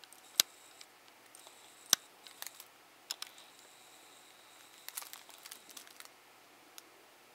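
Handling noise from a cardboard trading-card box held close to the microphone: two sharp clicks in the first two seconds, a few lighter ticks, then a short run of light crinkling about five seconds in.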